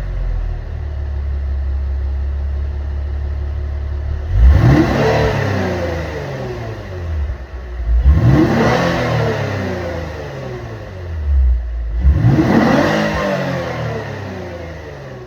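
Lexus IS350's 3.5-litre V6 exhaust idling, then revved three times, about every four seconds; each rev climbs quickly and falls back to idle.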